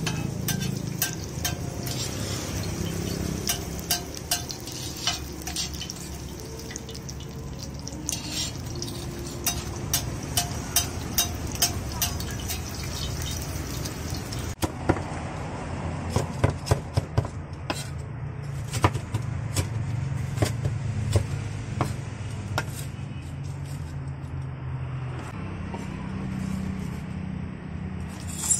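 Martabak telor frying in oil on a wide flat iron griddle: a steady sizzling hiss, with sharp clicks and clinks of a metal spatula and tongs turning and pressing it. About halfway the hiss cuts away suddenly, leaving scattered knocks and clicks over a low hum.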